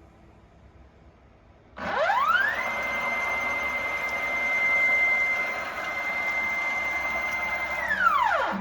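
Stepper motor driving the CNC mill's X-axis through one move. About two seconds in, its whine rises smoothly in pitch, holds a steady high tone for about five seconds, then falls back down and stops near the end.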